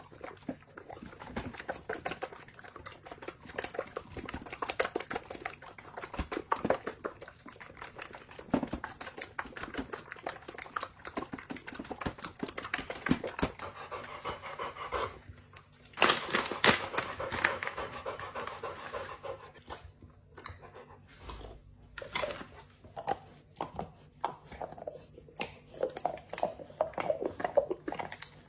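A Chinese Pastoral Dog panting, among many small clicks and rustles, with a louder rustling stretch of about two seconds a little past halfway.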